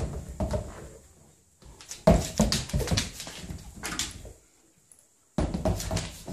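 A dog nosing and pawing a red rubber chew toy across a hardwood floor, the toy knocking and clattering on the floor and against furniture legs. The knocks come in three bursts, the middle one the longest and loudest.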